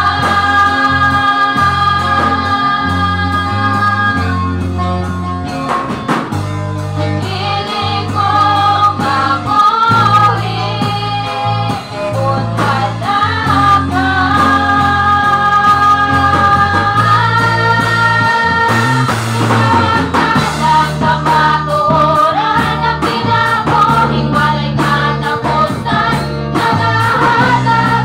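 A youth choir of mostly girls and young women singing a gospel song in Cebuano, in unison with held notes, over a steady instrumental accompaniment with sustained bass notes.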